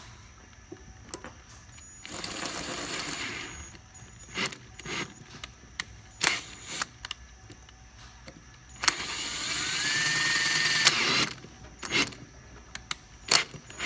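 Electric drill with a 17/64-inch bit boring out the stripped 1/4"-20 thread of a metal snare-stand casting, making room for a HeliCoil insert. It runs twice, briefly about two seconds in and longer about nine seconds in, the second run with a motor whine that rises and then holds. Sharp clicks and knocks come between the runs.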